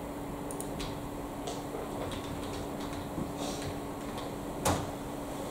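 A few scattered clicks and taps from a computer mouse and keyboard being worked, with one louder knock about four and a half seconds in, over a steady low hum.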